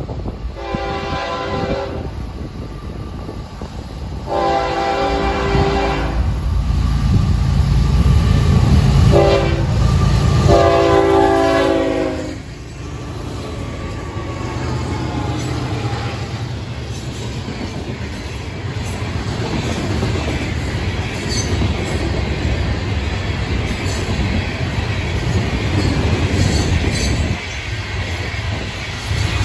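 Freight locomotive air horn sounding the grade-crossing signal, two long blasts, one short and one long, as the diesel-hauled train approaches. The locomotives then rumble past, followed by a long string of freight cars, their steel wheels clattering and squealing on the rails.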